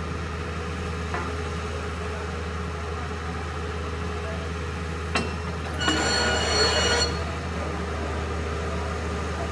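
Truck-mounted borewell drilling rig running with a steady, low drone. A sharp knock comes about five seconds in, then a shrill metallic squeal lasting about a second.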